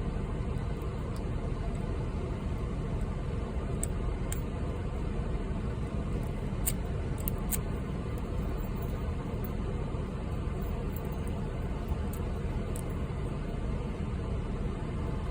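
Air conditioner running with a steady, loud low hum, with a few faint high clicks of the lock pick working the padlock's pins.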